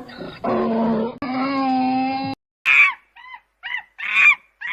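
Donkey braying: long, drawn-out, loud calls that stop about two and a half seconds in. After that come short, higher-pitched calls in quick succession.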